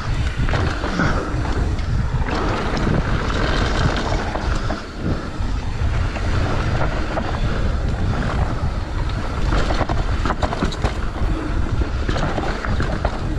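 Wind buffeting an action-camera microphone on a mountain bike descending at speed, over the rolling of knobbly tyres on a dirt and gravel trail, with short rattles and clicks from the bike over bumps.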